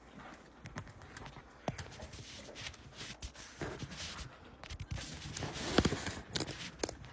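Irregular taps, clicks and rustles of objects being handled close to the microphone, thickest and loudest about five to six seconds in.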